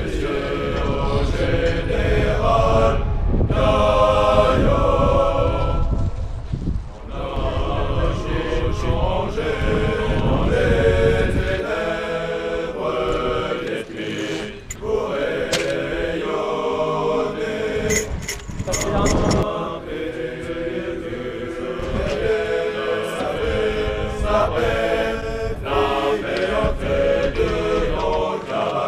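A group of voices chanting together in unison, in phrased lines like a marching or choir chant, laid over the footage as a soundtrack. A low rumble runs under it for the first eleven seconds or so, then drops away.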